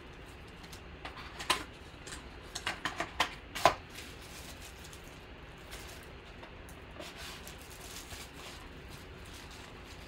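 A cardboard trading-card box and its wrapped pack being handled: a few sharp clicks and crinkles of packaging, one about a second and a half in and a cluster around three to four seconds in, the last the loudest. After that there is only faint rustling.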